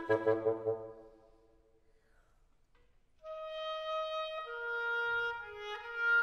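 Woodwind quintet playing: a pulsing ensemble chord fades out in the first second. The hall's reverberation dies away into a pause of about two seconds. About three seconds in, slow, long-held notes enter and move in steps.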